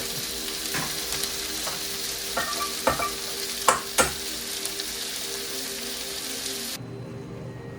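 Chopped sausage sizzling in a frying pan, with a utensil knocking against the pan about five times in the first half. The sizzle cuts off suddenly near the end, leaving a steady low hum.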